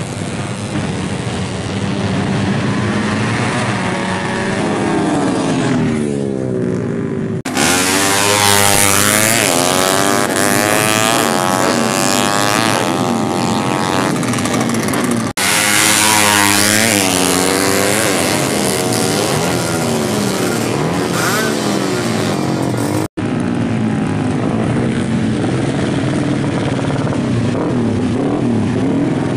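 Small drag-racing motorcycles revving hard and accelerating down the strip, their engine pitch repeatedly climbing and falling through the gears and as they pass. The sound jumps abruptly three times.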